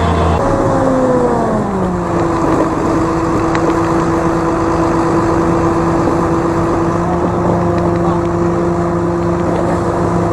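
Vehicle engine running steadily, its pitch falling over the first two seconds as it slows down, then holding even.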